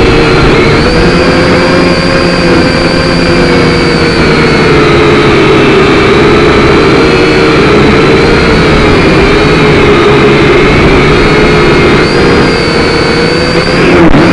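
Syma X5C-1 quadcopter's four small electric motors and propellers whining steadily, heard very loud from the drone's own onboard camera. The pitch wavers up and down as the throttle changes, and it unsettles briefly near the end.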